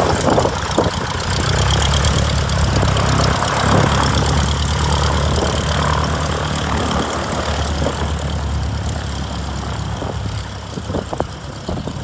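Aeronca Champ light airplane's engine and propeller running at low taxi power as it rolls past, a steady low drone that gets quieter over the last few seconds as it moves away.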